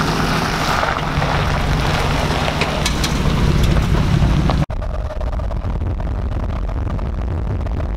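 Chevrolet Silverado pickup's engine running as the truck moves off, a steady low drone with a few sharp ticks. About two-thirds of the way in it cuts abruptly to steady road and wind noise inside a vehicle cruising on a highway.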